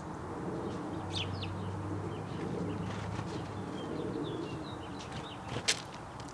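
House sparrows giving short, scattered high chirps, the clearest about a second in, over a low steady hum. A single sharp click near the end is the loudest sound.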